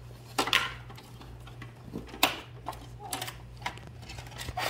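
Hard plastic toy pieces clicking and clattering as they are handled, with a few sharp knocks, the loudest about two seconds in, over a steady low hum.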